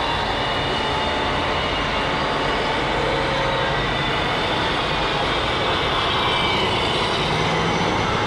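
Large-scale radio-controlled model trucks driving past: a steady mechanical running noise with several high, steady whining tones.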